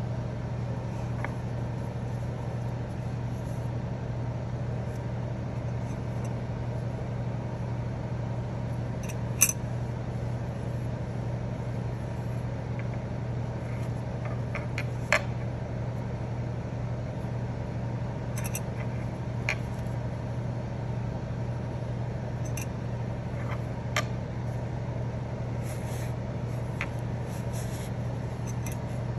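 Metal rings of a fabric martingale dog collar clicking lightly now and then as the collar is handled and its loop pulled, over a steady low hum.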